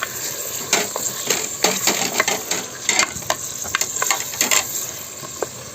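Cooking over a wood fire: irregular sharp clicks and ticks, a few a second, over a steady high hiss.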